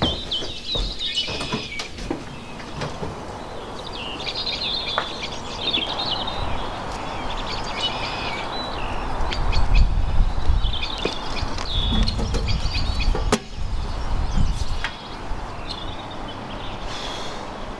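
Small birds chirping on and off, with a low rumble swelling in the middle and a few sharp clicks and knocks.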